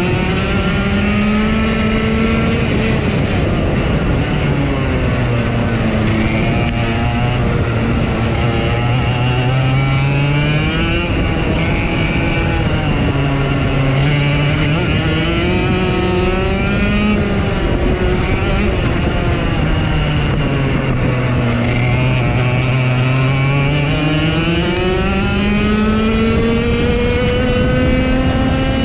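Race car engines running at racing speed on a short oval. The loudest engine rises and falls in pitch about every eight seconds, accelerating down the straights and lifting off into the turns, with other cars' engines overlapping it.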